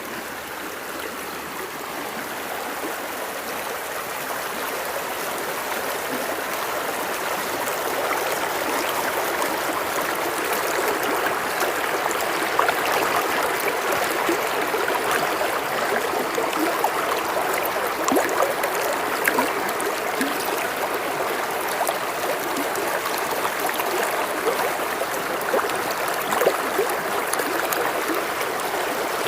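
River water flowing and babbling steadily over rocks, a continuous rushing with small splashes and trickles, slowly growing louder over the first several seconds.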